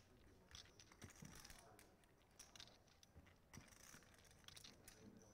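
Near silence with faint, scattered clicks of poker chips being handled at the table.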